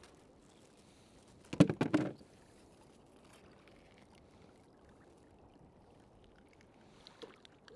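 Faint water lapping around a kayak, with a short loud clatter of knocks about one and a half seconds in.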